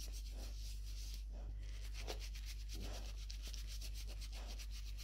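A small pad rubbed quickly back and forth over a dog's fur, cleaning a hot spot on its head: a rapid, rhythmic scratchy rubbing.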